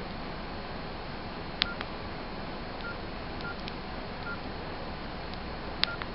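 Nokia N82 keypad tones: about five short, single-pitch beeps as menu keys are pressed, with two sharp button clicks, one about a second and a half in and one near the end, over a steady hiss.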